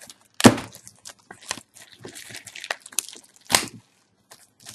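Clear plastic shrink-wrap crinkling and tearing as it is pulled off a pack of game reference cards, with two sharp crackles, one about half a second in and one about three and a half seconds in.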